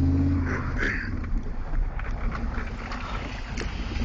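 A loud, low, steady car air-horn blast cuts off about half a second in. After it comes the quieter steady noise of the car moving, with a few small clicks and a brief low tone near the end.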